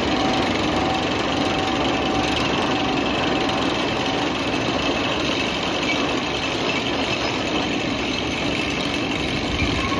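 Roller coaster chain lift running with a steady mechanical clatter as a loaded train climbs over the crest of the lift hill.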